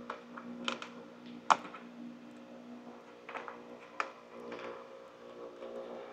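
Light clicks and taps of small plastic and foam parts being handled and pressed together on a workbench while fitting RC-plane control horns, with a sharper click about one and a half seconds in.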